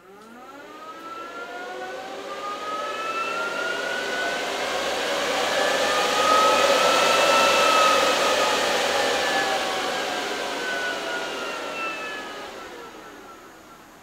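Power Jack inverter's cooling fans spinning up at power-on: a whine that climbs in pitch, swells to a loud rush of air around the middle, then slowly drops in pitch and fades over the last few seconds.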